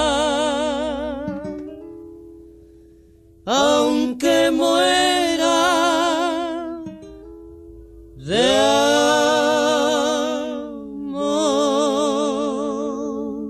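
Music: a Colombian guasca (música de carrilera) song for two voices singing in harmony over acoustic guitar, the voices holding three long notes with vibrato at the song's close, with a guitar strum and quieter held guitar tones between them.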